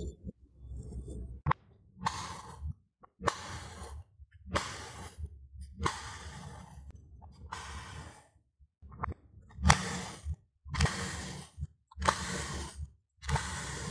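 Kitchen knives slicing through a molded block of kinetic sand, each cut a soft crunchy hiss lasting under a second, repeated about once a second with short pauses between.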